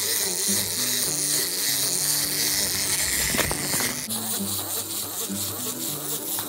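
Intro music: a low melody moving in short stepped notes under a steady high hiss.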